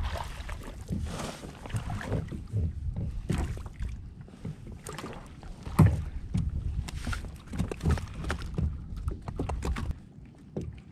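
Wind rumbling on the microphone and water against a plastic kayak, with scattered knocks and rattles as fishing tackle is handled while a small lingcod is reeled in and brought aboard. The loudest knock comes about six seconds in, and it is quieter near the end.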